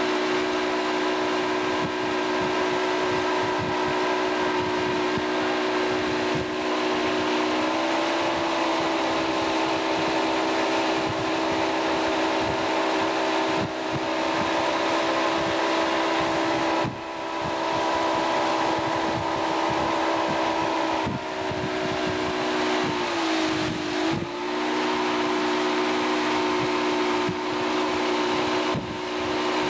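Motorboat engine running steadily at towing speed, heard from aboard the boat over a constant rush of wind and water. Its pitch rises slightly about eight seconds in, then dips briefly and recovers about six seconds before the end.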